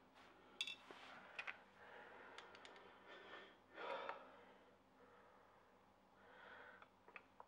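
Near-silent workshop: a man breathing heavily through his nose while working a screwdriver on clutch screws, with one stronger exhale about four seconds in and a few faint clicks.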